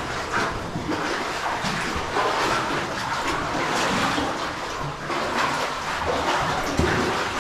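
Cave stream water running and splashing: a steady rushing noise broken by irregular splashes.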